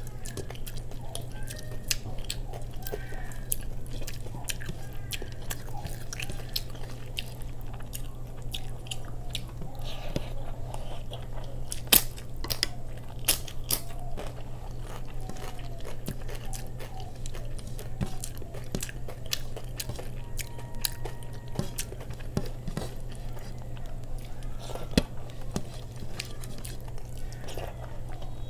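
Close-up chewing and mouth sounds of a person eating rice and paneer curry by hand, with many small clicks and a few sharper crunches, the loudest about twelve and twenty-five seconds in. A steady low hum runs underneath.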